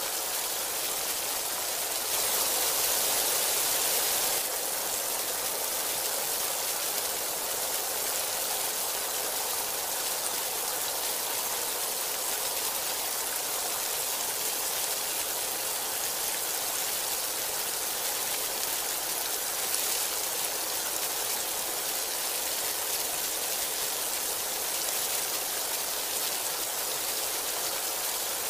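Heavy rain falling steadily as an even hiss, briefly louder about two seconds in.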